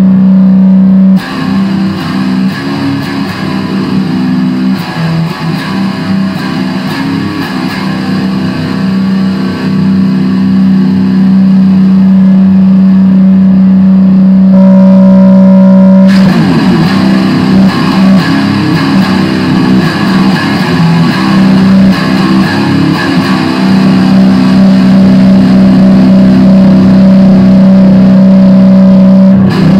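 Loud electric guitar from an Epiphone SG Special through a Line 6 Spider III amp, played as improvised heavy-metal riffing. A low note drones beneath it through most of the passage and breaks off about halfway for a short higher held note before the riffing returns.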